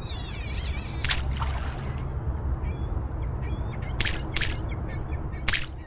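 Outdoor ambience: a steady low rumble with birds calling, a warbling call in the first second, short chirps in the middle, and several brief harsh calls.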